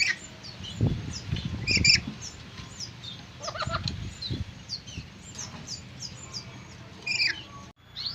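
Birds chirping, with short high calls repeating throughout, and bursts of wing flapping or rustling about one and four seconds in. The sound cuts off abruptly near the end.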